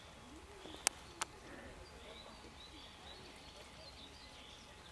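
Faint birds chirping, with two sharp clicks close together about a second in.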